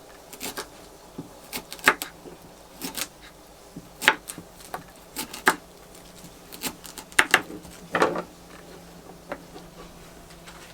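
Irregular light knocks and clinks of utensils and dishes being handled, about a dozen over several seconds, over a faint steady hum.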